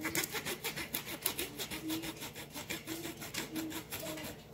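Dinner knife sawing back and forth through an apple piece on a cutting board: a quick, even run of rasping strokes, several a second.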